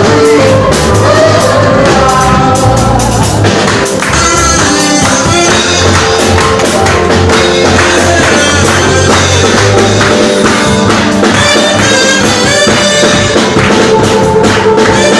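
Loud live gospel praise-and-worship music: a band with drums and percussion playing a steady beat, with singing over it.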